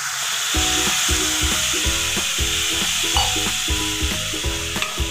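Water poured into a hot pan of fried prawn masala, hissing and sizzling, over background music with a steady beat.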